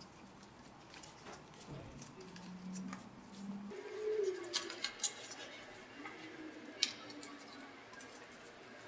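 Faint metal clicks and short squeaks of an Allen wrench turning the 5 mm Allen-head bolts out of the outboard housing of an Agilent IDP15 dry scroll pump, with a few sharp clicks about halfway through.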